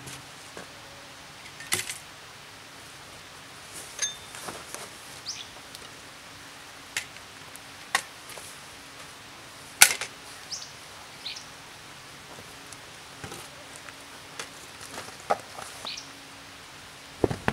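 Sparse clicks, taps and light knocks of a backpack and its gear being handled and hung on a log shelter post, with a few short high bird chirps. The loudest sound is a single sharp click a little past halfway.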